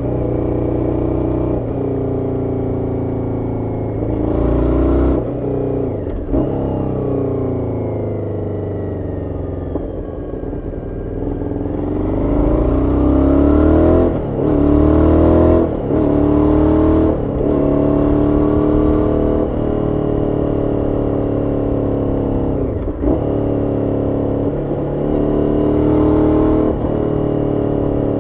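Aprilia Shiver 750's stock 90-degree V-twin heard onboard while riding, its revs rising and falling with several brief breaks at gear changes. The revs fall away about eight to eleven seconds in, then climb hard and loudest from about twelve to sixteen seconds in.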